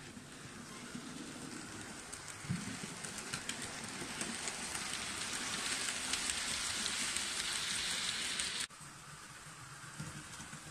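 Model railway train, a steam locomotive with its coaches, running past close by: a hissing rattle of wheels on the track with fine clicks, growing louder as it nears. It breaks off abruptly about three-quarters of the way through, leaving a quieter running sound.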